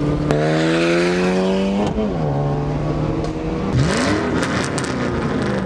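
Car engine heard from inside the cabin, accelerating hard with its pitch climbing for about a second and a half, then dropping sharply at a gear change and settling to a steady cruise. Past the middle it gives one quick rev that rises and falls.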